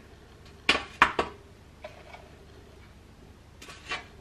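A metal spoon clinking and tapping against a mixing bowl and springform pan as buttered biscuit crumbs are scooped out: three sharp clicks about a second in, a couple of faint ones, then a few more near the end.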